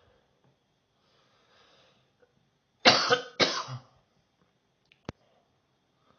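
A person coughing twice in quick succession, each cough loud and short, after a faint breath in. A single sharp click follows a couple of seconds later.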